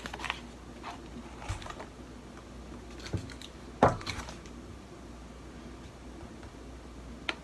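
Handling noises: a few light knocks and rustles from a cardboard cornstarch box and fingers working powder on a plate. One sharper knock comes a little under four seconds in, as the box is set down on the table.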